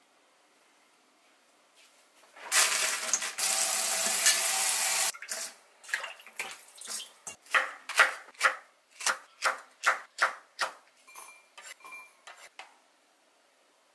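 Kitchen tap running into a stainless steel sink for a few seconds, then a run of short sharp knocks and clatters, about two a second, fading near the end as peppers are washed and handled.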